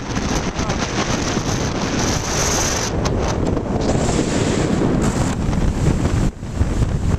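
Strong wind buffeting the microphone in a loud, rumbling rush, with the wash of surf beneath it. The wind eases briefly about six seconds in.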